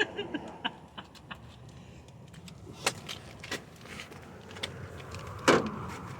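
Scattered clicks and clinks of tools and parts being worked on in a car interior teardown, with one louder knock about five and a half seconds in.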